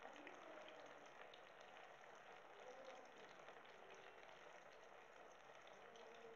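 Cauliflower pakoras in gram-flour batter deep-frying in hot oil in a kadhai: a faint, steady sizzle with many small crackles.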